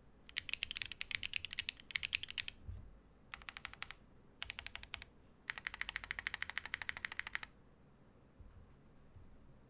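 Mechanical keyboard with Lichicx Yalasuo linear switches, PBT keycaps and an aluminum plate, no foam inside, being typed on fast in four quick runs of keystrokes. The last run is the longest and most even, and the typing stops about two-thirds of the way in.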